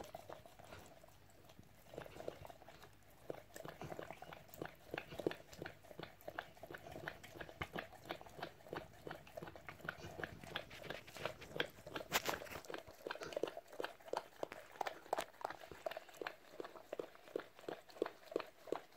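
Mother dog licking and nibbling at her newborn puppy's amniotic sac just after birth: a continuous run of short wet licking and smacking sounds, about two or three a second.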